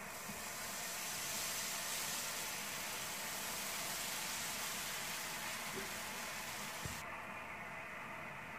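Slices of bread spread with butter and sugar sizzling in a hot non-stick frying pan, a steady hiss. The brightest, highest part of the hiss drops away about seven seconds in.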